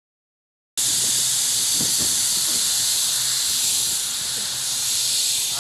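Silence, then, a little under a second in, a loud steady hiss starts abruptly and carries on.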